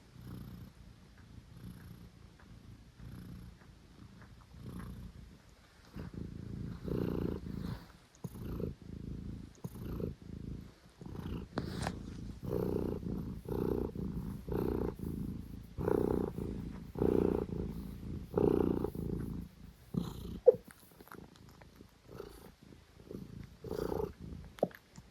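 Domestic cat purring, pulsing with each breath about once a second: soft at first, then loud from about six seconds in. The purring is broken by hiccups, heard as a few sharp clicks, two of them near the end.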